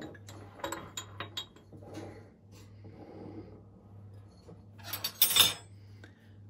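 Kitchen utensils and dishes clinking and rubbing as grape molasses is spooned onto a breakfast plate: a run of light clinks in the first two seconds, then a louder scraping burst about five seconds in.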